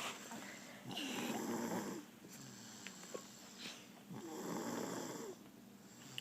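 Soft snoring from a sleeper: two snores about three seconds apart, each lasting about a second, with quiet breathing in between.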